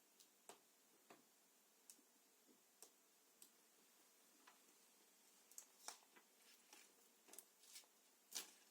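Faint, scattered small clicks and ticks from handling a replacement laptop LCD panel while its protective covering is taken off, coming more often in the second half, with the loudest click near the end.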